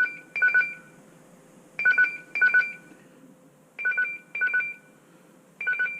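MoesGo kids' alarm clock sounding its alarm: a loud electronic beep in pairs, one pair about every two seconds.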